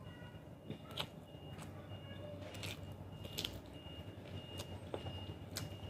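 Quiet, close-up chewing with a few short wet mouth clicks spaced about a second apart, over a low steady hum.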